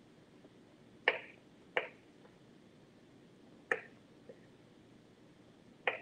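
Sharp knocks of kitchen utensils on a hard work surface: four, irregularly spaced, with a fainter tap between.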